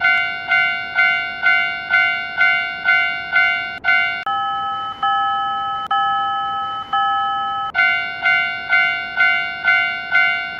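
Japanese railroad crossing warning bell ringing 'kan-kan' in quick strikes, about two a second. A little after four seconds in it changes to a different crossing bell with longer, held tones about once a second. Near eight seconds the quick strikes return.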